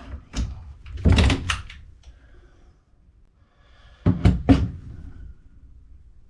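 Sharp knocks and clatter of tools and pipe parts being handled during boiler piping work: one knock near the start, a quick cluster about a second in, and another cluster about four seconds in.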